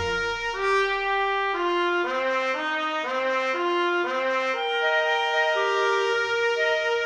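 Background music: a brass-toned melody, with notes changing about every half second, then longer held notes from about the middle on.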